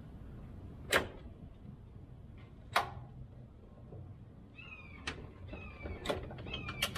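Two sharp metal knocks, then a run of short, high, slightly falling squeaks mixed with quick clicks, from the fuel tank and transmission jack being worked under the van. The clicks come faster near the end.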